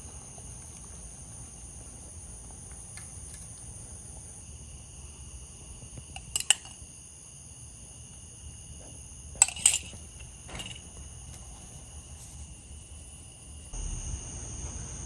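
Evening chorus of crickets: steady high-pitched trilling on several pitches at once. A few sharp clicks cut through it, one about six and a half seconds in and a quick pair near the ten-second mark.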